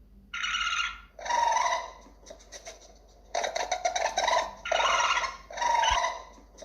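An animal calling: five short, high-pitched cries, one after another.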